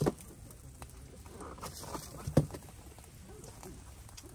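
Two short, dull knocks, one at the very start and a louder one about two and a half seconds in, with faint low voices murmuring between them.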